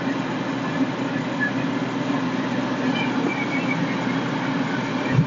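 A steady engine-like rumble with a constant hiss over it, and a short low thump near the end.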